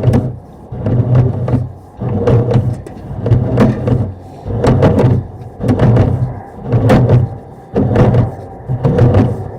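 Sewer inspection camera's push cable being fed through the sewer line, with rhythmic clunking and scraping about once a second.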